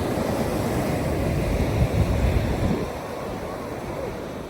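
Sea surf rushing on the shore, with wind rumbling on the microphone; the rush eases a little about three seconds in.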